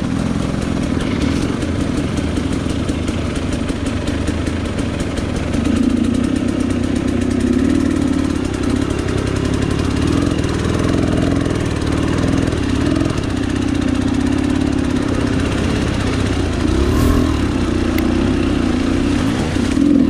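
Dirt bike engine running at low, fairly steady revs while the bike wades through a shallow river. The revs pick up a little about six seconds in.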